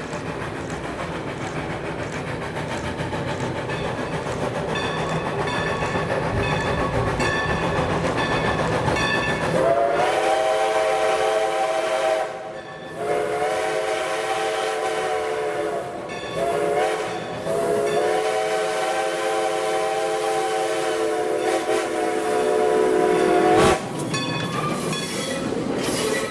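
Steam locomotive No. 40, a Baldwin 2-8-0, working toward the listener with steady exhaust beats, then sounding its steam whistle in four blasts, long, long, short, long: the signal for a road crossing. Its train then rolls by close up with a knock and wheel clatter.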